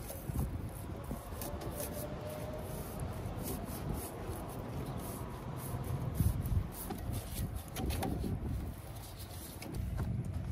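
Irregular rubbing and scraping with scattered light clicks and knocks.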